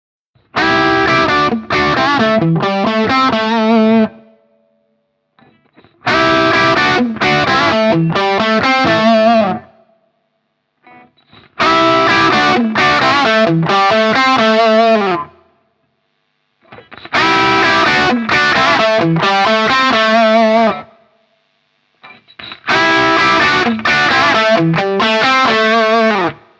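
Electric guitar played through a J. Rockett Jeff Archer, a Klon-type overdrive pedal, with a mild overdrive. The same short phrase of a few struck chords that ring out is played five times, each about three and a half seconds long with a short pause between.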